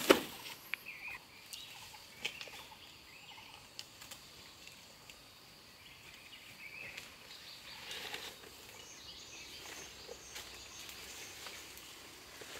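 Large banana leaves rustling and crackling as they are cut and gathered by hand, opening with one sharp knock and a few smaller clicks. Short high chirps come and go through the first half.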